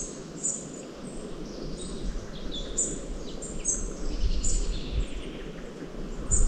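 Small wintering birds chirping, many short, high calls repeated over and over, over the sound of wind in the trees. The wind gusts on the microphone as a low rumble that grows stronger in the second half.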